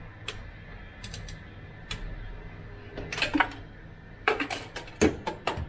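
Ratchet and socket extension clicking and clinking while being worked onto a spark plug in an engine bay: irregular sharp clicks that bunch into quick runs about three seconds in and again near the end, over a faint steady low hum.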